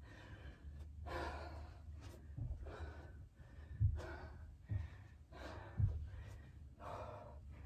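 A person breathing hard, one breath roughly every second, catching their breath after a set of squat jumps. A few soft low thumps come through in the middle.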